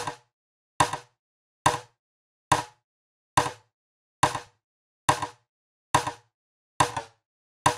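A short electronic percussive hit looped as the test sound for a chorus/delay plugin: about nine evenly spaced hits, a little more than one a second, each sharp and dying away within about a third of a second.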